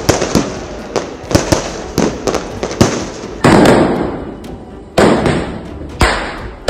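Firecrackers and fireworks going off: a run of sharp cracks, then bigger bangs, each with a long echoing tail, about three and a half, five and six seconds in.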